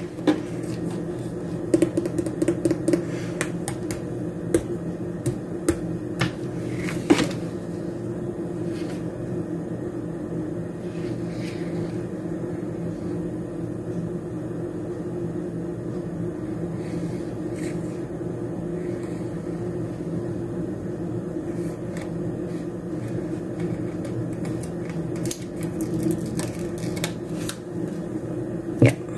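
A steady low hum from a small motor or fan runs throughout. Over it come scattered light taps and paper rustles from a sticker sheet being handled, grouped in the first few seconds and again near the end.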